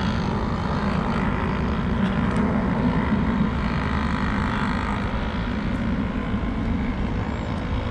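Small engines of radio-controlled racing boats running at speed on the water, a steady buzzing drone.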